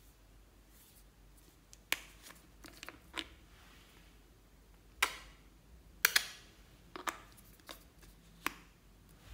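Hard plastic clicks and knocks as a hollow plastic toy is handled and its two halves are pulled apart and fitted together. About nine sharp clicks at irregular spacing, the loudest two a little past the middle.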